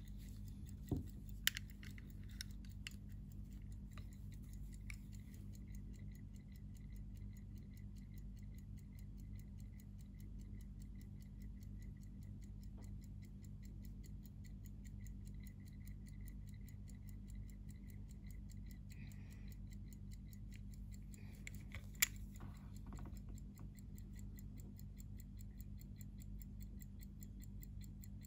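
Antique Meiji-era shōkan pocket watch ticking, a faint, fast, even tick from its freshly cleaned and oiled movement. There are a few light clicks of the silver case being handled near the start, and a sharp click about 22 seconds in.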